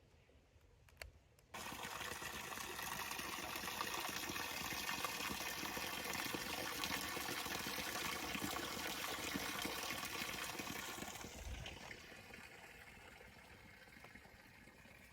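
Spring water running and splashing, a steady rushing sound that starts suddenly about a second and a half in and drops to a softer flow near the end.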